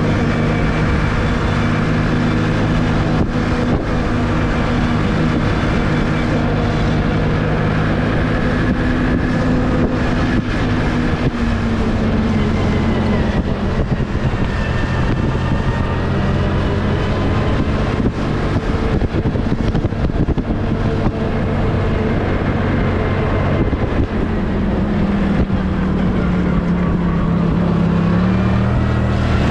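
Snowmobile engine running steadily under way over snow, its note shifting with the throttle: it climbs a little about twelve seconds in, drops lower later on, and climbs again near the end.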